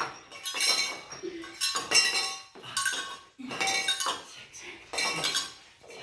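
Several cowbells clanking and ringing one after another, more than once a second, as they are hit by hand.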